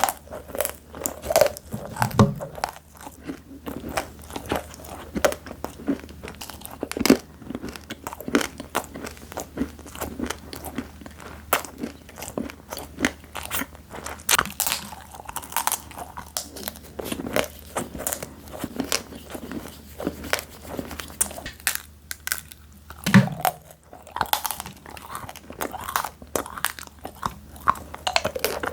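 Close-miked crunching and chewing of crispy fried snacks: dense, irregular sharp crackles of bites and chews running on continuously, with a couple of soft low thumps.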